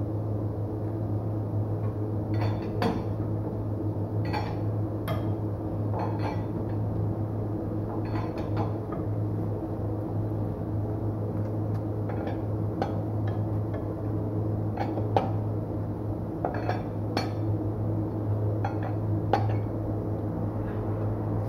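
Scattered sharp metallic clicks and clinks of a hand wrench working the wheel nuts, over a steady low hum.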